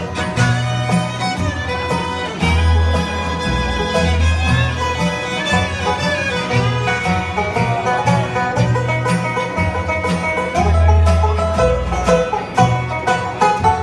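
Bluegrass band playing an instrumental break: fiddle leading over banjo rolls, guitar and bass.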